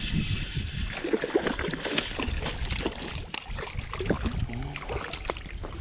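A hooked largemouth bass being fought and reeled in on topwater tackle: irregular splashing and knocking at the water's surface over a low rumble of wind on the microphone.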